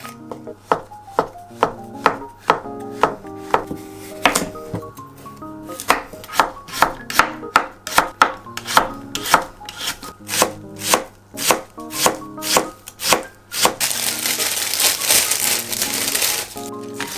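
A knife with a white ceramic blade slicing shiitake mushrooms and then carrots on a wooden cutting board, about two cuts a second, each cut ending in a knock on the board. Near the end the cutting stops and plastic wrap crinkles for about three seconds as a bunch of garlic chives is handled.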